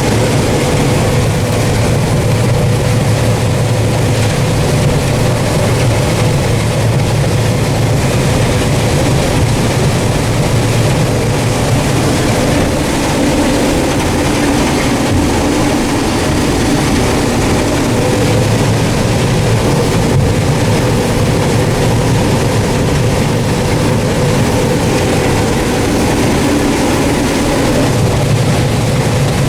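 Combine harvester running steadily while harvesting corn: a constant engine drone with a steady machinery hum over it, unchanging throughout.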